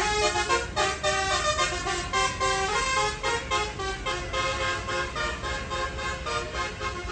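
Tour bus's 'telolet basuri' musical horn playing a quick tune of stepping notes, over a low engine rumble.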